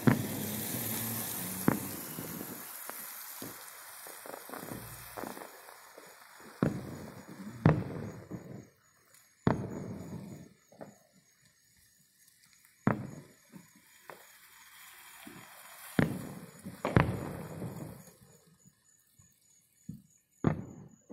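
Fireworks going off at a distance: about nine sharp bangs at irregular gaps of one to four seconds, each followed by a rolling rumble of echo. There is a denser spell of crackle in the first few seconds.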